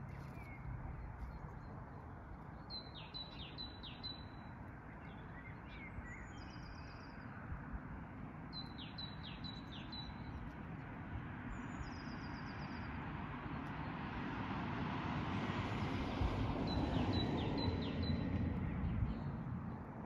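Small birds singing short phrases of a few high notes, repeated every several seconds, with a faster high trill between them, over a steady low background noise. A broad rushing noise swells up in the last third and fades near the end.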